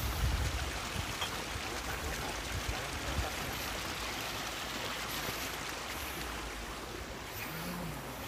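Steady rushing hiss of a small stream running over rocks, with a few low wind buffets on the microphone in the first second and again about three seconds in.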